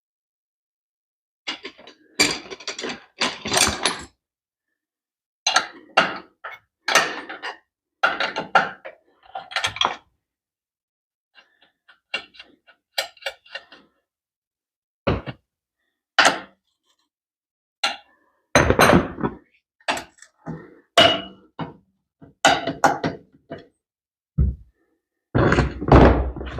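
Irregular metallic thunks and clanks of hand tools working on a motorcycle's parts, coming in clusters of several knocks with silent gaps between them.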